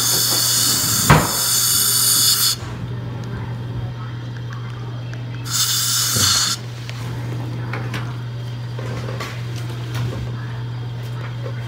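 High-speed dental drill whining during a crown preparation. It runs for about two and a half seconds, stops, and runs again briefly about five and a half seconds in. A sharp tap comes about a second in, and a steady low hum runs underneath.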